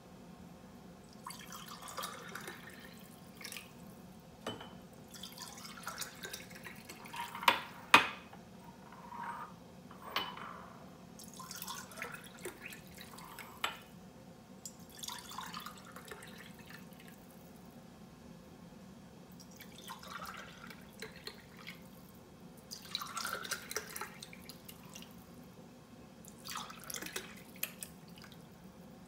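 Milk poured from a stainless steel saucepan into small glass jars and ceramic pots, one container after another. There are about eight short pours, several rising in pitch as the container fills. A couple of sharp clinks come about seven to eight seconds in.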